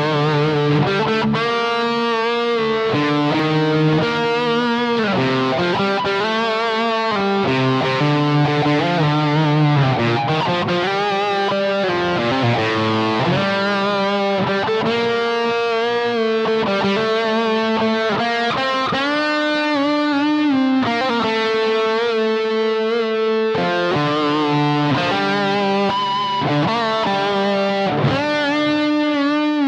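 Overdriven electric guitar from a Tom Anderson guitar through a Bluguitar Amp1, recorded direct from the amp's Record Out, playing a singing lead line of long sustained notes with vibrato and string bends.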